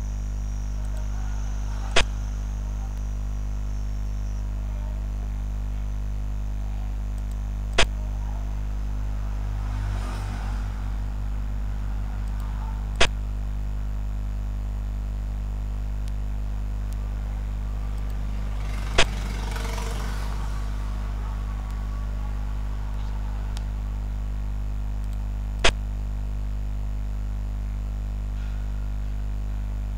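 Xiangqi program's piece-move sound effect: five sharp clicks, one every five to seven seconds, as pieces are placed on the board, over a steady low electrical hum.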